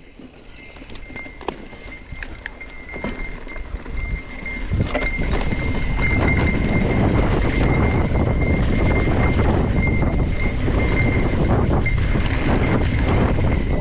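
Trek Fuel full-suspension mountain bike rolling downhill on a dirt and rock trail: knobby tyres crunching over the ground and the bike clicking and rattling over bumps, with wind rushing over the microphone. It grows louder through the first six seconds as the bike picks up speed, then holds steady.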